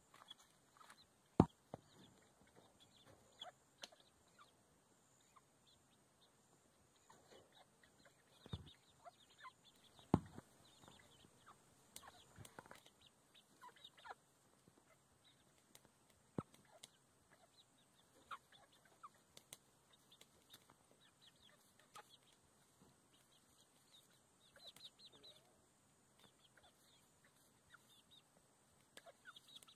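Hens feeding, softly clucking with many short high calls. A few sharp taps stand out, the loudest about a second and a half in and about ten seconds in.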